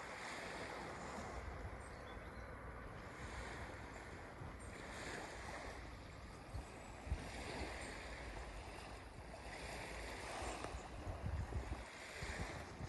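Faint outdoor ambience: a low wind rumble on the microphone with a steady soft hiss, and a few light ticks.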